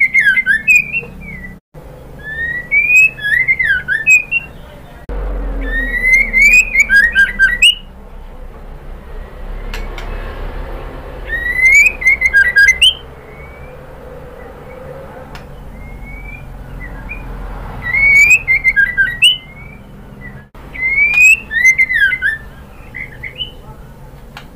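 Female white-rumped shama (murai batu) calling to a male: short bouts of quick rising and falling whistled notes mixed with harsher chattering, about six bouts with pauses of a few seconds between them.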